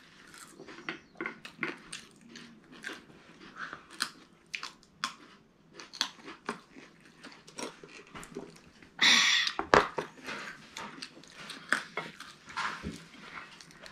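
People chewing and biting into food from a KFC meal: irregular wet clicks and crunches, with one louder, noisier burst about nine seconds in.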